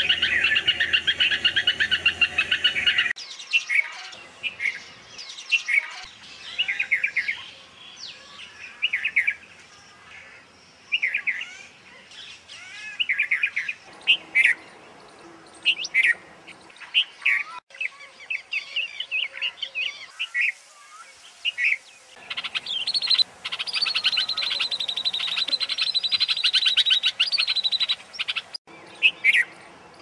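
Red-vented bulbuls calling. Fast, continuous chattering at the start gives way to short whistled phrases with gaps between them, and another run of fast chattering comes near the end. The recording changes abruptly several times, as separate recordings are joined.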